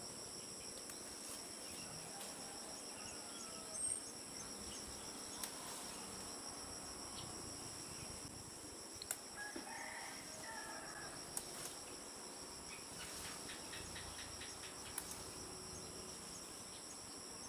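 Faint, steady insect chorus, a high-pitched shrill at several pitches held throughout. A few soft snaps of cassava leaves being picked, and a faint chicken call about ten seconds in.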